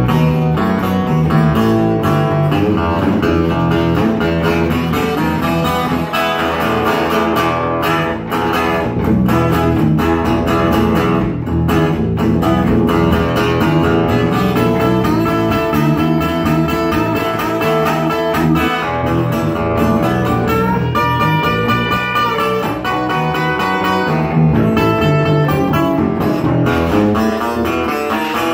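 Live blues: an amplified acoustic guitar and an electric bass guitar playing together in an instrumental stretch of the song, with no vocals.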